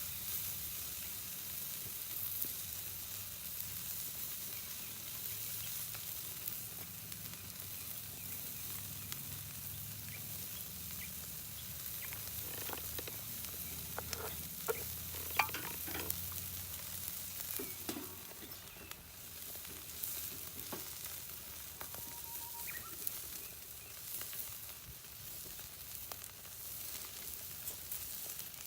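Meat sizzling steadily as it grills over charcoal, with a few short clicks and knocks about halfway through.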